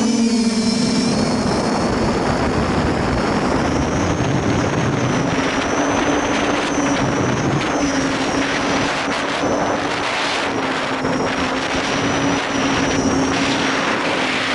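Quadcopter's Sunnysky 2212 1400Kv brushless motors spinning 8x4.5 props in flight, a steady hum with a high whine above it and a rushing hiss of air.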